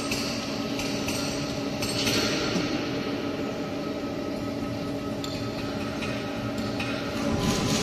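350-ton double-cylinder hydraulic wheelset press running during wheel press-mounting: a steady hum with occasional short metallic clinks and brief noisy bursts.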